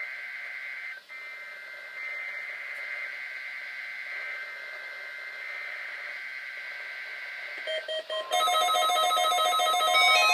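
NOAA Weather Radio's weekly alarm test: the digital warning-code data sounds as a buzzy two-pitch screech for about eight seconds, with a short break about a second in. Just after eight seconds a steady alarm tone starts, joined by rapid, patterned beeps that grow louder, the tones that switch on weather-alert receivers.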